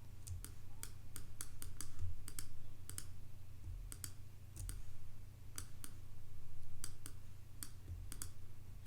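Irregular clicking of a computer mouse, many sharp clicks at uneven intervals, over a steady low hum.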